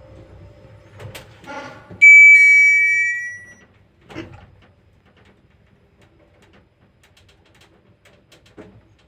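Passenger lift running with a low hum and faint creaks, then a loud two-note arrival chime about two seconds in that fades out, followed by a single clunk about two seconds later as the car stops and the doors work.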